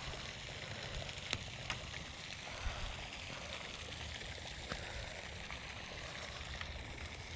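Steady outdoor rush of water with a few sharp clicks and taps scattered through it.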